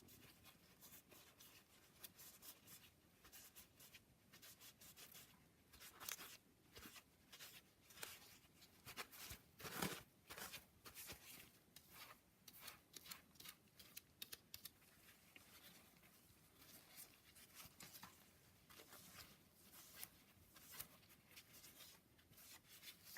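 Faint scattered rubbing, scraping and light clicks of hands working on engine parts at a bench, with the loudest strokes around 6 and 10 seconds in.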